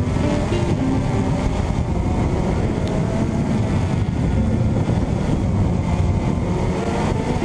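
Quadcopter's electric motors and propellers running, heard from the GoPro mounted on the craft: a steady buzz over heavy rumble, with the motor pitch stepping up and down as it flies.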